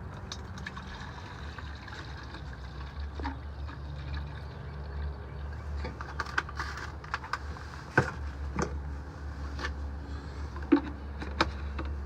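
Water running into a coil-cleaner sprayer bottle as it is filled from a hose, with a few sharp plastic knocks in the second half.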